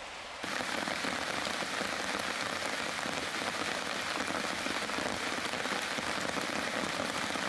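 Steady rain falling on a wet forest campsite, a dense even hiss that starts abruptly about half a second in.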